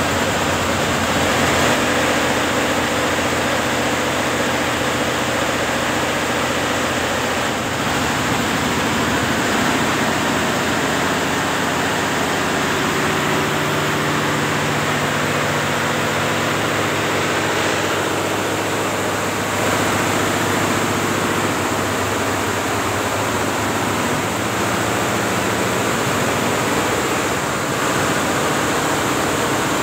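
Multi-head computerized embroidery machine running: a loud, steady mechanical din of many stitching heads, with a low hum underneath.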